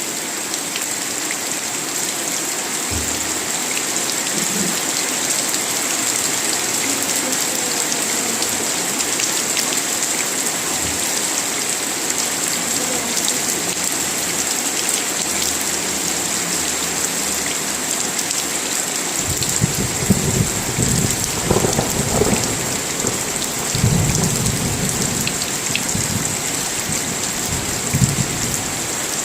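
Steady heavy rain with a high hiss mixed in. About two-thirds of the way through, low rolling thunder begins, rumbling in several swells.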